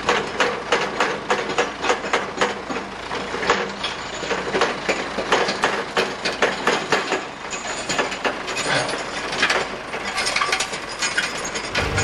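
Steady metallic clicking and rattling, about four clicks a second, from a rough-terrain forklift and a tractor coupled to it as they move together.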